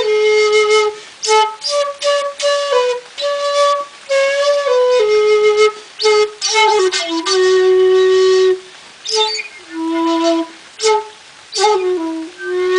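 A 1.9 shakuhachi (a Japanese end-blown bamboo flute, a little longer and lower than the standard 1.8) played solo in a slow phrase. It holds breathy notes separated by short breaks, with notes sliding down in pitch, and the line works downward toward the end.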